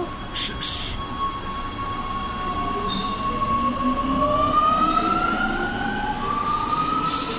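CAF-built Rome Metro Line A train pulling out of the platform. Its traction motors whine in a tone that holds steady and then rises in pitch from about halfway through as the train speeds up, over the rumble of the wheels.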